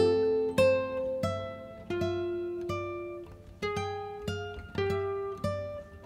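Background music: a slow melody of single plucked guitar notes, each ringing out and fading before the next.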